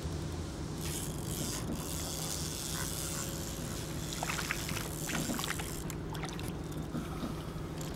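A hooked fish splashing at the water's surface as it is reeled in toward the dock, heard as a run of short crackles about halfway through. A steady low engine drone runs underneath.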